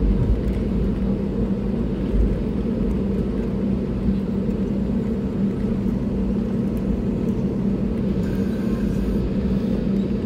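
Steady low rumble and drone inside the cabin of an Airbus A320neo taxiing: engines running at taxi power, with a constant hum under the rolling noise of the wheels.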